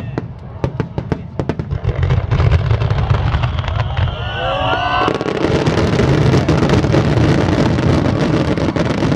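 Aerial fireworks going off in a heavy barrage: rapid sharp bangs at first, then a continuous booming rumble. Several whistling glides sound about four seconds in, followed by a dense, continuous crackle.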